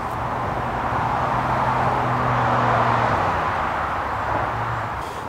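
A car driving past: tyre and engine noise swells to a peak about two and a half seconds in, with a low engine hum under it, then fades away.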